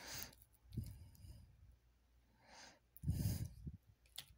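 Tarot cards handled in the hands: a few soft rustles and light taps as the deck is shuffled and sorted, with one fuller rustle about three seconds in.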